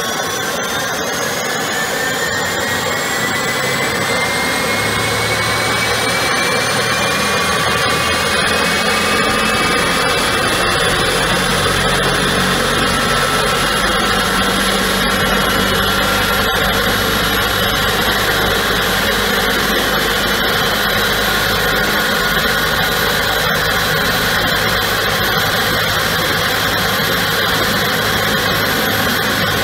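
GE90 high-bypass turbofan spooling up during start: a high whine climbs in pitch over the first ten seconds or so, then holds steady, with a low rumble building underneath.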